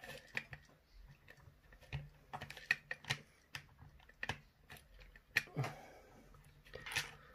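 Irregular light clicks and taps of small screwdriver bits being handled and pulled from a bit set while looking for the right Torx size.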